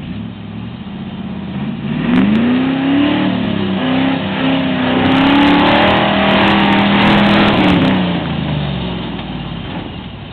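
Range Rover Classic's V8 engine revving under load as the truck climbs a muddy hill. The pitch rises about two seconds in, holds high and loudest for a few seconds, then falls away and fades near the end.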